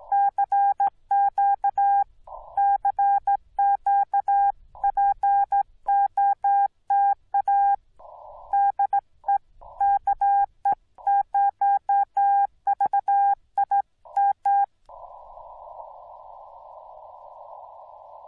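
Yaesu FT-891 transceiver's CW sidetone: Morse code being keyed out as a single steady-pitched beep in dots and dashes for about fifteen seconds. The receiver is muted between the elements, so this is the operator's own sending. When the keying stops, the narrow-filtered hiss of the receiver comes back.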